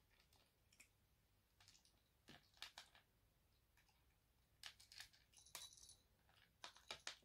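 Faint, irregular crunching clicks of a kitten chewing dry kibble from a plastic dish, coming in small clusters.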